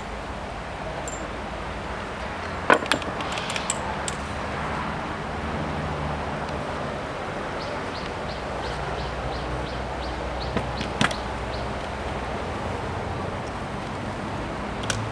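Spent .38 cases ejected from a Smith & Wesson revolver's cylinder, clattering onto a wooden table as a quick cluster of sharp metallic clicks about three seconds in. A few single clicks follow later, over a steady low background hum.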